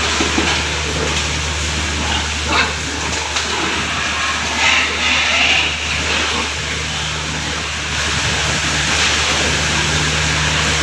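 Pig barn sound: a steady low mechanical hum and hiss, with short sow vocalizations breaking through about two and a half seconds in and again around the five-second mark.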